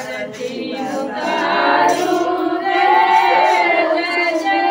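A group of women singing a devotional song together, with long held notes.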